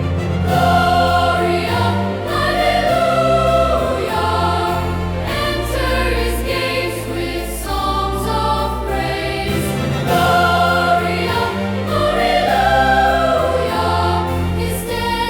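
Choir singing a joyful psalm setting in a choral-symphony style, over instrumental accompaniment with sustained bass notes that change every second or two.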